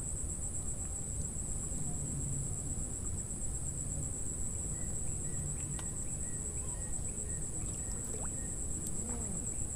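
A continuous high-pitched insect trill, a steady cricket-like chorus that pulses finely without a break, over a low rumble.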